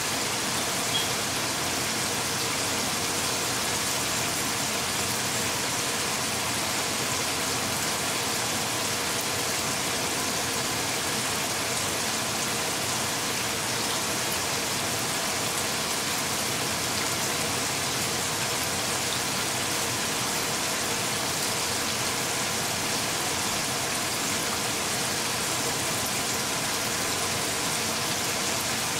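Steady, even hiss with faint steady hum tones underneath, unchanging throughout, and one small click about a second in.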